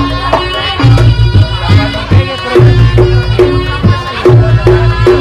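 Reyog Ponorogo gamelan playing live: drums and struck bronze keyed instruments in a steady, regular rhythm, with low booming strokes under it.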